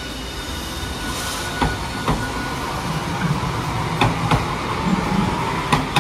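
Hiroshima Electric Railway Green Mover APEX low-floor articulated tram passing close by, running with a low rumble and its wheels giving several sharp clacks, two of them close together, as they cross rail joints.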